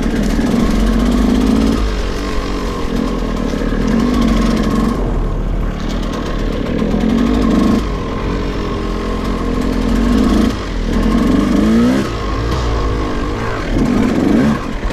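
KTM 200 EXC two-stroke single-cylinder engine revving in repeated surges while riding. The pitch climbs about five times, every two to three seconds, as the throttle is opened and closed.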